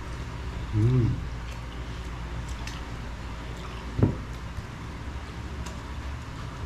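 Quiet table eating by hand: faint scattered ticks and mouth sounds over a steady low hum, with a man's brief voiced 'mmm' about a second in and a single sharp knock about four seconds in.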